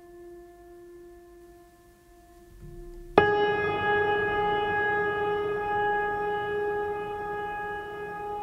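Background music: a steady, held droning tone that steps up suddenly about three seconds in to a louder, higher sustained note with a rich, organ-like sound.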